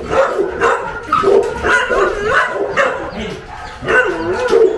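Dog barking again and again in quick succession, mixed with some higher yips.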